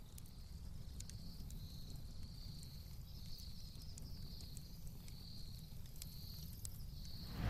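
Faint ambience: a soft, high insect-like chirp repeating about every three-quarters of a second over a low rumble, with a few faint ticks.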